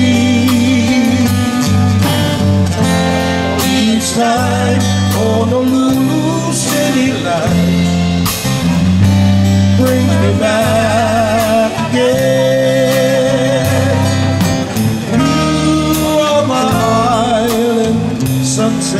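Band music with singing over guitar, bass and drums, at a steady beat.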